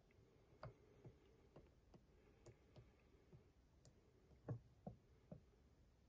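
Near silence with faint irregular clicks and light taps of a plastic oil jug and funnel being handled while chain oil is poured into a chainsaw attachment's oil reservoir. The loudest taps come a little past halfway.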